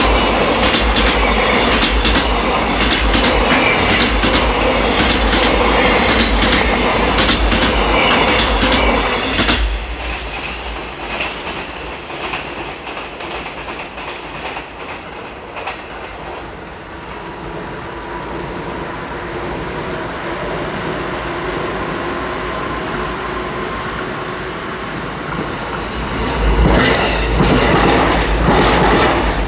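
A freight train's loaded container wagons roll past close by, wheels clattering over rail joints, until the tail clears about ten seconds in. After a quieter stretch in which a faint hum slowly builds, an electric commuter train passes close by with the same wheel clatter in the last few seconds.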